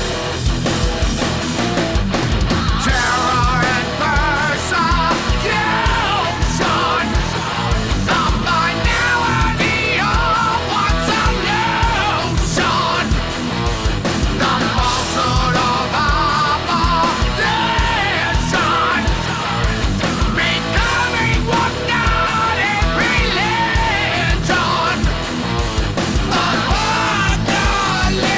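Heavy rock music with a loud, steady beat and a singer's voice coming in about three seconds in.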